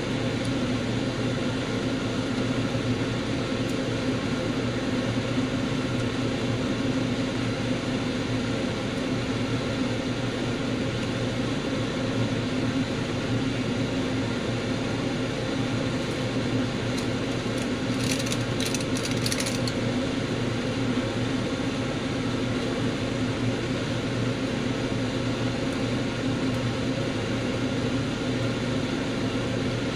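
Steady low machine hum, unchanging throughout, with a brief patch of light clicks a little past the middle.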